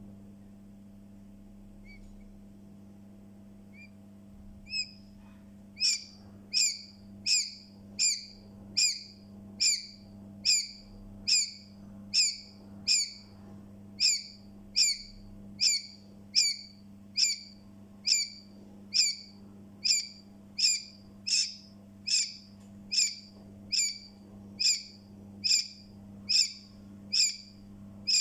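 Newly hatched chick peeping loudly and insistently: sharp, falling peeps repeated about once every 0.8 seconds, starting about five seconds in. A faint steady low hum sits underneath.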